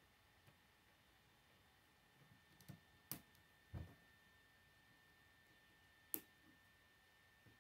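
K'nex plastic rods and connectors snapping together: a few sharp clicks, the loudest about three seconds in and again about six seconds in, with a dull knock just before four seconds. A faint steady high tone sits underneath.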